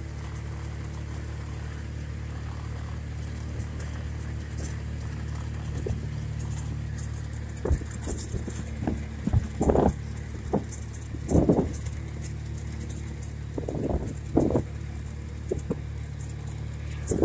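Small motor vehicle engine running steadily at low, even revs, a low hum that doesn't rise or fall. From about halfway in, several short louder bursts cut across it.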